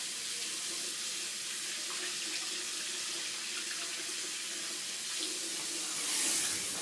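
Bathroom sink tap running steadily, water splashing into the basin while hands are washed, a little louder near the end.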